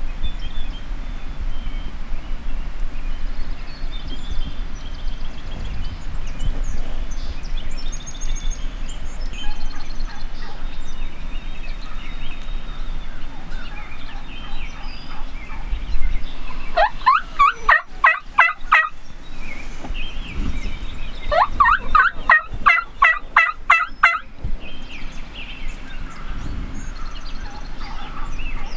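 Wild turkeys gobbling twice in the second half, a few seconds apart, each a rapid rolling burst of a couple of seconds, over a steady low rumble with faint scattered bird calls.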